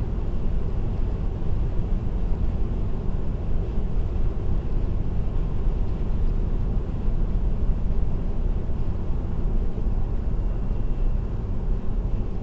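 Steady road noise of a car cruising on an expressway: a constant low rumble of tyres and engine heard from inside the cabin.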